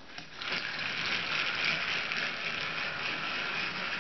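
Battery-powered TrackMaster toy engine (Rebecca) switched on, its small electric motor and gears then running steadily as it pulls a tender and wagon along plastic track, starting about half a second in.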